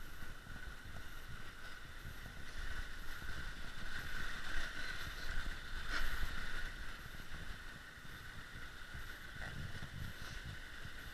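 Steady outdoor wash of a gentle shale creek, with shifting wind rumble on the action camera's microphone and a single brief knock about halfway through.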